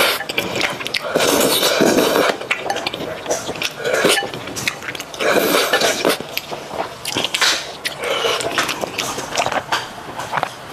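Several loud slurps of sauce-coated noodles from Northeastern sticky malatang, with chewing between them and chopsticks clicking against a glass bowl.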